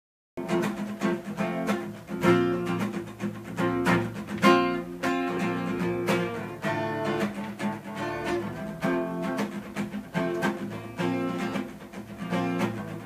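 Instrumental song intro led by strummed and plucked acoustic guitar, starting about half a second in.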